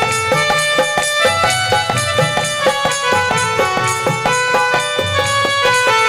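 Folk devotional bhajan music in an instrumental break between sung lines: a melody of held notes stepping in pitch, over quick, steady drum strokes.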